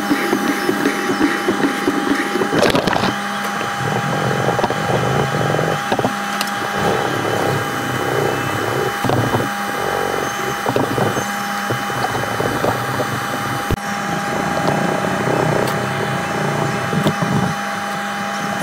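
Hand sanding of a wooden knife handle with a small piece of sandpaper held in the fingertips: repeated back-and-forth scratchy rubbing strokes. A steady hum runs underneath.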